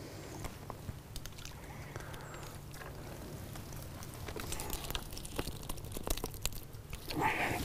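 Scattered small clicks and light taps of a fishing pole and tackle being handled, over a low steady outdoor background. A louder rushing noise builds near the end.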